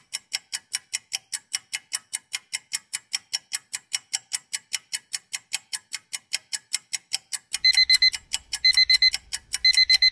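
Countdown-timer sound effect: a clock ticking about four times a second, then, about seven and a half seconds in, an alarm-clock beeping in quick groups of beeps, about one group a second, as the timer runs out.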